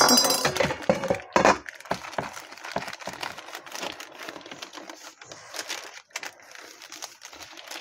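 A stainless-steel pan lid clinks as it is lifted off and set down in the first second and a half. Then come small crackles and paper rustling as the crisp trimmed edges of a freshly baked honey-cake layer are broken away from the parchment.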